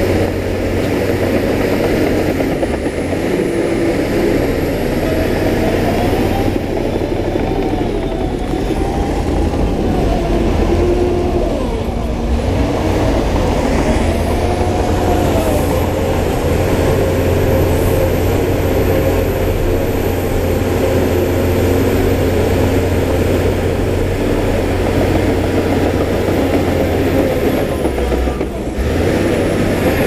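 Heavy earthmoving machinery running continuously under load: a steady deep engine drone with a tone that repeatedly rises and falls, and a thin high whine on top.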